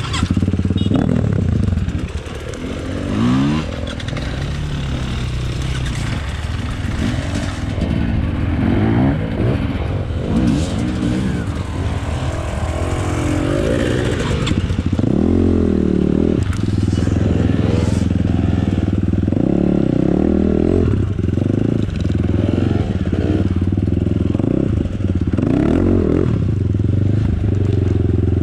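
Enduro motorcycle engine revving up and down again and again as it is ridden off-road, then running at a steadier pitch for the last several seconds.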